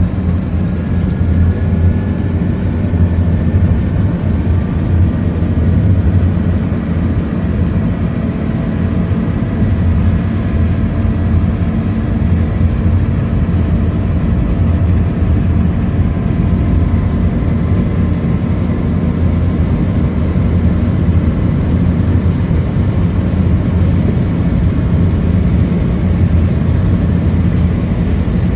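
Scania K230UB single-deck bus cruising at a steady speed, heard from inside the saloon: a constant deep rumble from its five-cylinder diesel engine with road and tyre noise. Faint whines drift slowly in pitch through the drivetrain noise.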